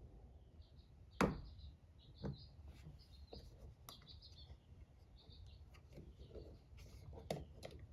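Sharp plastic clicks and taps of a small screwdriver prying the cover caps off a pickup's headliner grab handle, the loudest about a second in. Faint high bird chirps repeat throughout.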